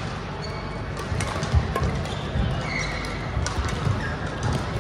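Play on an indoor court during a doubles match: shoes squeaking on the floor, footfalls thudding, and a few sharp hits.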